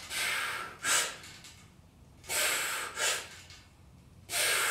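A man's forceful breathing in time with cable chest-press reps: a longer breath followed by a short sharp one, repeating about every two seconds.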